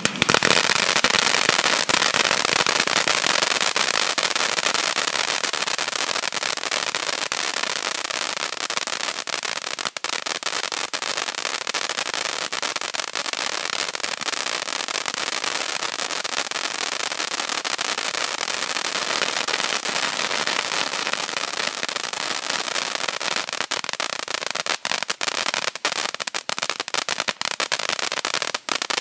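Wolff 6405 Familie Juweel compound fountain firework spraying sparks: a steady rushing hiss that starts suddenly and becomes more broken up near the end.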